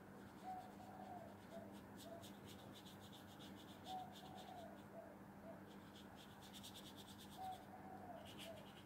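Near silence: a faint bird call in the background, a low short phrase of one longer note and two or three short ones, heard three times about three and a half seconds apart. Soft scratching on paper runs under it.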